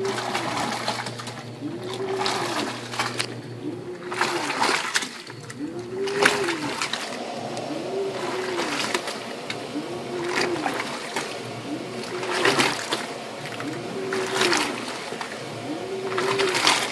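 Waveforce 14 kg top-loading washing machine agitating a load of jeans in soapy water. The motor's whine rises and falls about every two seconds as the agitator reverses, over splashing and sloshing water.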